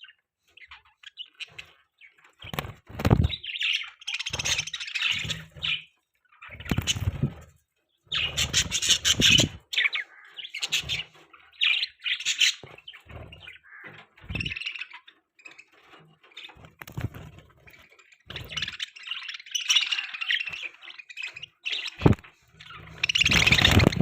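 Pet budgerigars chirping and chattering in irregular bursts of warbling twitter, with short pauses between and some low bumps mixed in.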